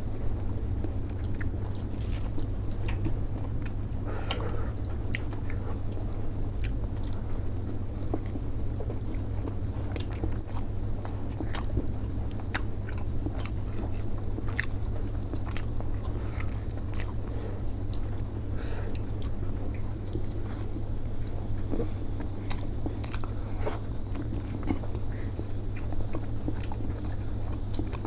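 Close-miked eating of steamed chicken momos dipped in chutney: repeated bites and wet chewing with many small mouth clicks, over a steady low hum.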